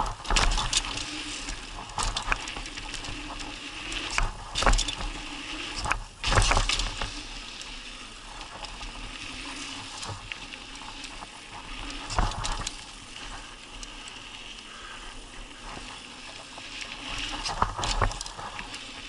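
Mountain bike rolling fast down a dirt trail: steady tyre noise on the packed dirt, with the bike rattling over bumps and a handful of louder knocks and clatters from rough patches.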